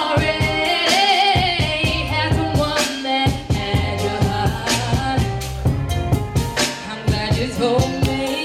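A singer's voice with vibrato, carrying a melody over a pop backing track with drums and bass.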